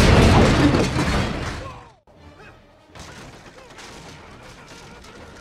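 Film sound effect of a loud crash and explosion with flying debris, dying away over about two seconds. From about three seconds in, quieter action-film music and effects follow.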